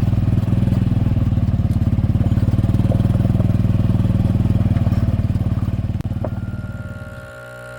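A golf cart's small petrol engine running steadily at speed, with a fast, even pulse. About six seconds in it fades out and gives way to a quieter steady hum with a thin high whine.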